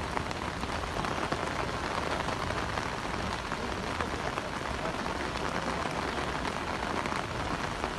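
Heavy rain falling steadily, a dense patter of many small drop impacts.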